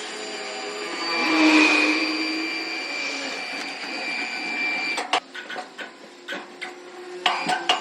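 Power saw cutting an ironwood billet: a steady whining machine noise with held high tones for about five seconds, then a run of sharp knocks and clicks.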